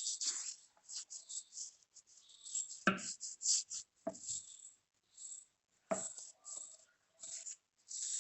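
Homemade salt and coconut oil scrub being rubbed over the skin of the hands, making gritty, irregular scratching strokes with a few duller knocks.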